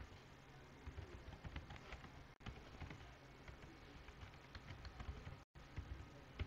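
Faint, irregular keystrokes of someone typing on a computer keyboard.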